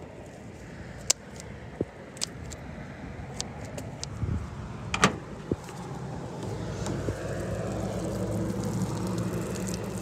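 Sharp snips of game shears cutting through a dove's wings and bones, a few separate clicks with the loudest about five seconds in, over a steady low hum. Near the end, water starts running from a jug's spigot.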